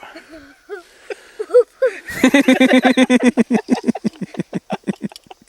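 A person laughing hard: a fast run of 'ha-ha-ha' pulses that starts about two seconds in, then slows and trails off, after a few short voice sounds.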